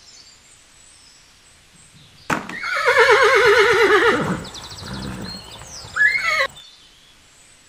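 Horse whinnying: one long quavering neigh starting about two seconds in and falling away at its end, then a short higher call near the end.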